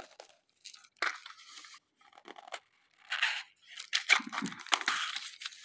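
Clear plastic and foil wrapping crinkling and tearing as a pack of matchboxes is unwrapped by hand, in irregular bursts that are loudest and busiest in the second half.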